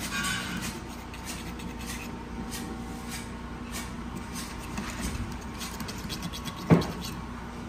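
Knife and fork scraping and crackling through a crisp, sesame-topped baked bread crust, with one sharp knock about two-thirds of the way through.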